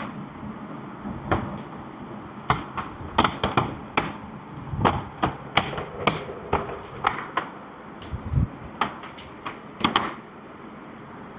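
Irregular sharp clicks and knocks of plastic parts of an all-in-one PC being handled and pressed back into place, about twenty in all, some louder than others.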